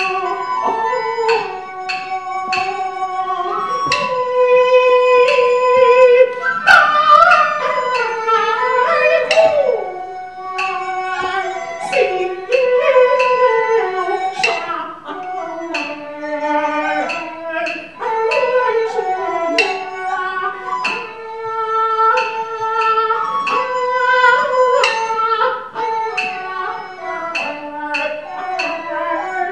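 Kun opera music: a melody sung with instrumental accompaniment, its line gliding and bending, punctuated by frequent sharp percussion strokes.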